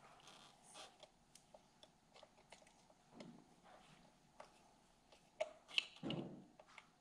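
Faint scattered clicks and small metallic knocks of a hand tool and parts being handled at a mini dirt bike's carburetor, as the carburetor is loosened and rotated on its mount. Near the end come a few sharper clicks and a short low thump.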